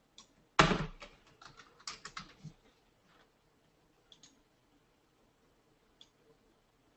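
Typing on a computer keyboard: a hard key strike about half a second in, then a quick run of keystrokes entering a number, and a few single clicks later.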